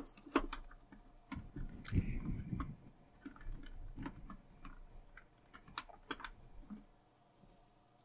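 Plastic back cover of a VAX 2000 vacuum cleaner's handle being pressed and fitted into place by hand: scattered light plastic clicks and rubbing, dying away about seven seconds in.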